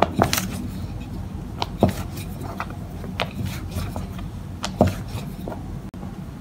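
Wooden rolling pin rolling dumpling wrappers on a floured wooden board: scattered light knocks and clicks, over a low steady hum.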